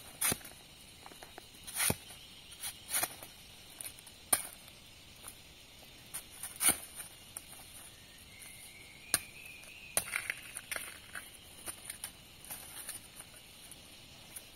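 A machete chopping and digging into the ground among dry bamboo leaves, giving sharp, scattered knocks and rustles about every second or two. A steady high hiss runs behind, and a faint rising whistle comes about eight seconds in.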